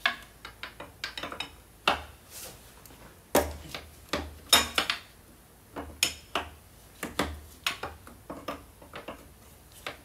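Irregular sharp metallic clinks and knocks of hand tools and engine parts being handled under the hood as hoses and tubes are disconnected.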